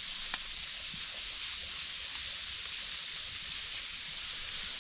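Steady, even hiss of running water, the wash of a small woodland waterfall or creek.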